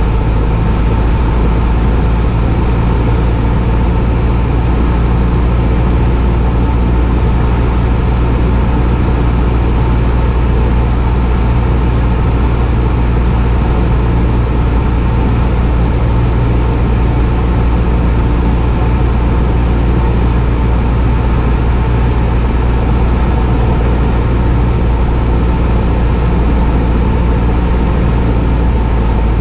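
Piston engine and propeller of a high-wing single-engine light aircraft, running steadily in flight and heard inside the cockpit as a loud, even drone.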